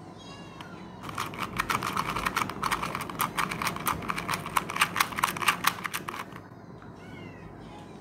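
A 2x2 Rubik's cube's plastic layers being turned rapidly by hand in a speed solve: a dense run of irregular clicks and clacks starting about a second in and stopping a little after six seconds.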